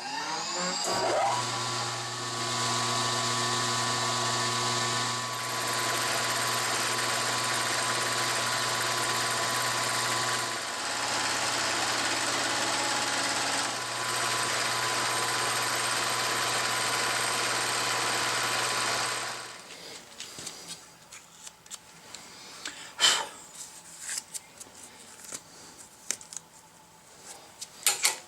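An electric power tool's motor spins up with a rising whine about half a second in, runs steadily for roughly nineteen seconds with a few brief dips, then stops. Light clicks and knocks of metal parts being handled follow.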